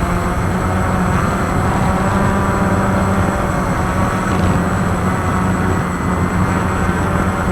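Walkera QR X350 quadcopter's motors and propellers whirring steadily in flight.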